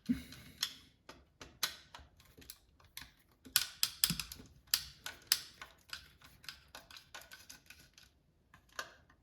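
Screwdriver clicking and tapping on the brass terminal screws of an electrical wall socket as the live, neutral and earth terminals are loosened: irregular sharp clicks, some in quick clusters, with a short gap a little after eight seconds in.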